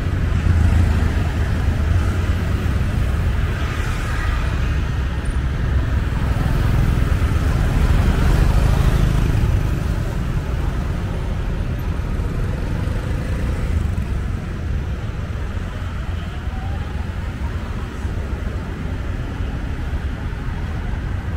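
Road traffic heard from a moving vehicle: a steady low rumble of engines and tyres among motorbikes and cars, louder in the first half and easing off about ten seconds in.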